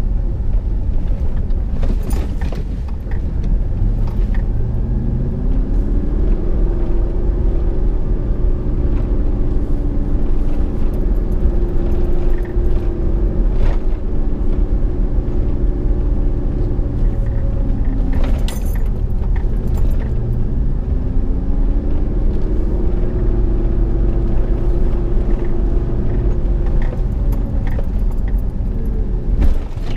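Dodge Ram Power Wagon's Hemi V8 pulling up a steep dirt trail, heard from inside the cab with tyre and road rumble. The engine note rises twice as the truck picks up speed, and a few short knocks and rattles come from the rough track.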